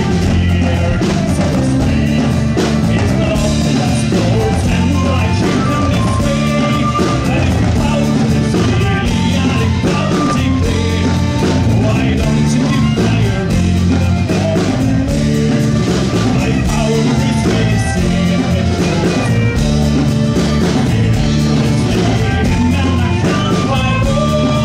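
Live folk band playing an instrumental passage between sung verses: strummed acoustic guitar with flute and fiddle on the tune, over a steady beat.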